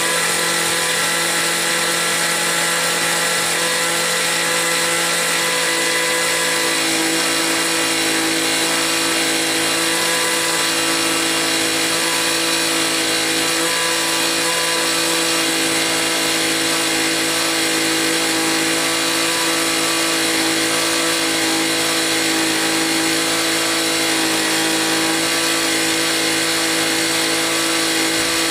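A motor or engine running at a constant speed with a steady whine, after spinning up just before.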